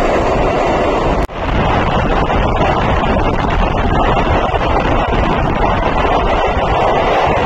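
Loud, steady running noise of a passenger train in a rail tunnel, heard at an open coach door, with wind buffeting the microphone. The sound cuts out for an instant about a second in.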